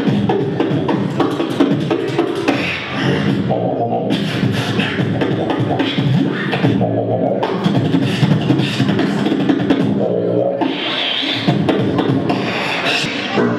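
Live beatboxing through a microphone: rapid vocal drum beats and bass, with a few short held vocal notes mixed in.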